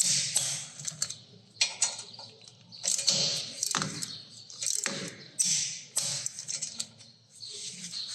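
Irregular clicks, scrapes and rustles of hand work on a disc brake caliper's slider pins.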